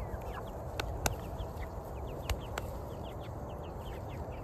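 A flock of young meat chickens peeping, many short falling peeps overlapping, with a few sharp clicks about a second and two and a half seconds in.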